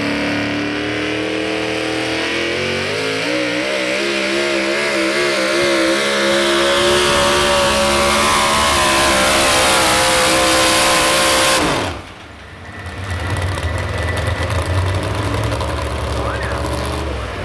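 Modified 4x4 pulling truck's engine at full throttle during a pull, its pitch climbing over the first few seconds, then holding high and wavering. About twelve seconds in the throttle is cut and the pitch falls away sharply, and the engine settles to a low idle.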